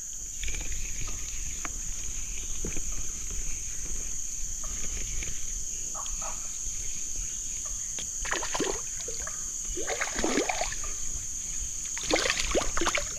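Water splashing as a hooked tawes (silver barb) is fought and drawn in to the bank, in several splashy bouts in the second half. A steady high drone of insects runs behind.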